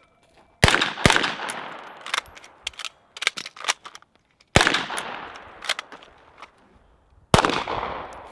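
Rifle shots: four loud reports, two about half a second apart near the start, one about four and a half seconds in and one near the end, each followed by a long fading echo, with fainter sharp cracks in between.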